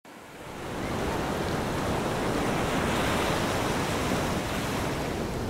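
Ocean surf: a steady rush of breaking waves washing onto the beach, fading in over the first second.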